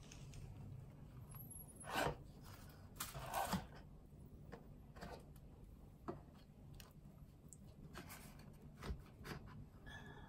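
Handling noises as a leather wallet and its small cardboard slide-out box are moved and set down on a wooden shelf: a knock about two seconds in, a short rustle a second later, then fainter taps.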